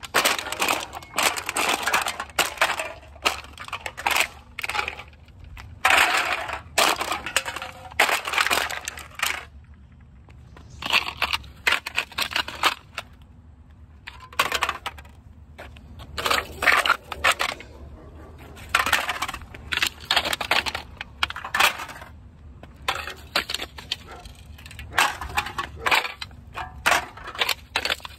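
Empty aluminum cans crumpling and clattering as they are handled, in irregular bursts of crackly metallic noise with a lull about halfway through.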